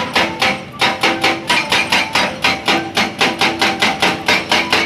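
Excavator-mounted hydraulic breaker pounding rock in a fast, even rhythm of about five or six blows a second.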